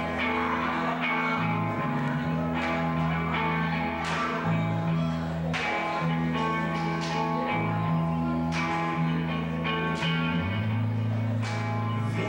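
A live band playing an instrumental passage: electric guitar and drums over sustained bass notes that shift every second or so, with repeated cymbal crashes.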